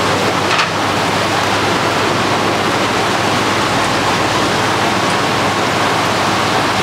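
Steady rushing of running and aerated water from many aquarium tanks.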